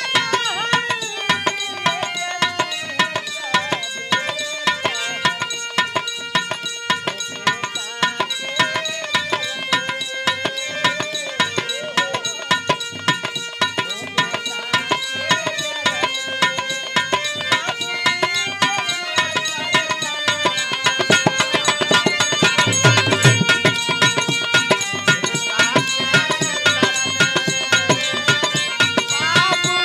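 Dholak hand drum played in a quick, dense rhythm under a harmonium's sustained reed chords and melody, an instrumental folk-music passage. About two-thirds of the way through, a few heavier bass strokes sound on the drum.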